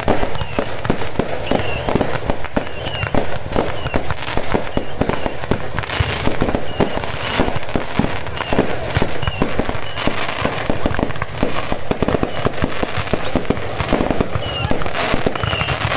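Fireworks going off in a dense, continuous barrage of sharp bangs and crackles.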